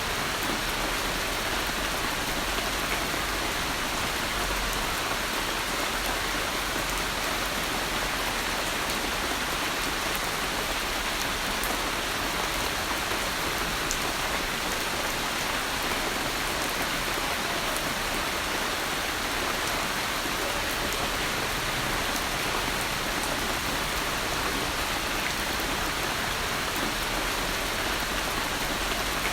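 Steady, even rain falling, a continuous hiss of drops with scattered fine ticks of individual drops.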